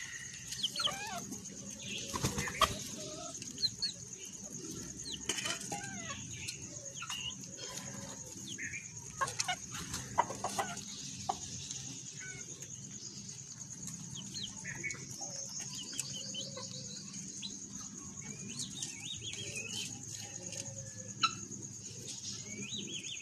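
Many short bird chirps scattered throughout over a steady high-pitched insect drone, with occasional sharp clicks.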